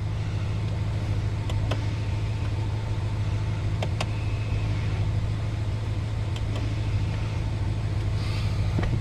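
BMW M550i's twin-turbo V8 idling steadily, with a few faint clicks through it.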